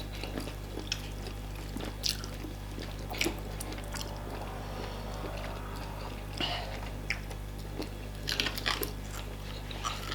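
Eating sounds: scattered wet mouth smacks and chewing of fufu and soup, with a denser run of smacks about eight seconds in, over a steady low hum.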